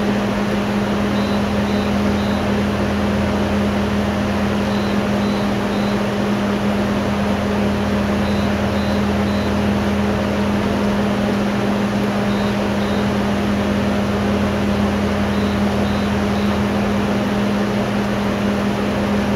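Steady hum of running surgical equipment: an even, unbroken motor-like drone with a strong low tone. Faint short high beeps sound in groups of two or three every few seconds.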